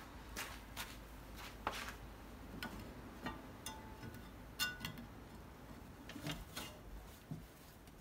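Hands handling the metal auger housing and third-stage impeller of a Cub Cadet 3X 30 HD snowblower: scattered light clicks and taps, one with a brief metallic ring about four and a half seconds in.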